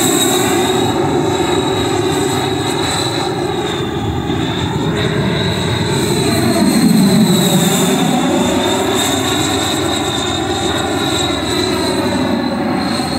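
JETFAN-120 PRO electric ducted fan with its HET 800-73 motor, in an Odyssey RC jet in flight: a steady high whine over a rushing of air. It swells a little as the jet passes closest, around the middle.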